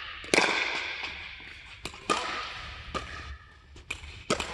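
Sharp pops of pickleball paddles striking the hollow plastic ball in a doubles rally, roughly one a second, the loudest about a third of a second in. Each pop rings briefly in the big indoor court hall.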